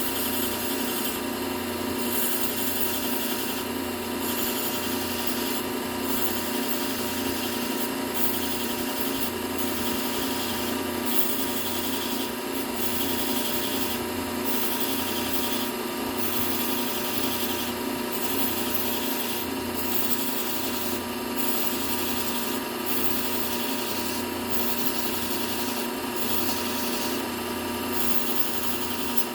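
Bucktool low-speed belt sander running with a fine Trizact A30 belt while a serrated kitchen knife's edge is ground on it, drawing up a burr. The grinding hiss comes in repeated passes roughly once a second over the sander's steady motor hum.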